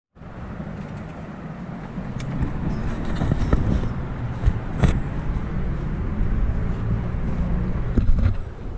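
Steady low rumble of wind and distant city traffic heard from high on an exposed building, with a few sharp knocks, the loudest about five seconds in.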